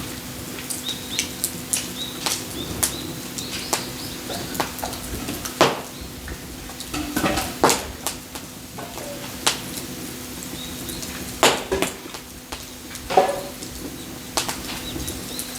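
Irregular clicks, knocks and clatter of hard objects being handled, over a steady low hum.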